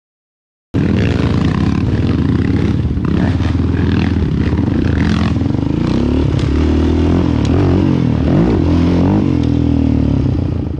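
Sport quad (ATV) engine running under throttle, its pitch rising and falling over and over as the rider blips and eases off the gas, with some rattling clatter. It cuts in abruptly about a second in and drops away at the very end.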